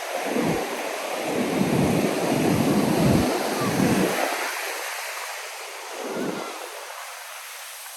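Surf washing on a sandy beach as a steady hiss, with gusts of wind buffeting the microphone in low rumbles that come and go. The gusts are strongest in the first half and die away near the end.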